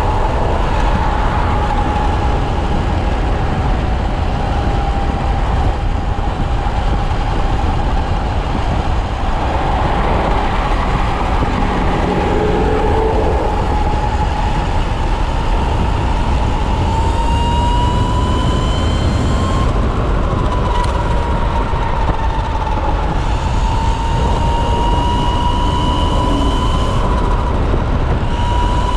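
Whine of a Kawasaki KLX's electric conversion motor at road speed under heavy wind rush on the microphone. The whine holds steady, then rises in pitch past the middle as the bike speeds up, dips briefly and climbs again near the end.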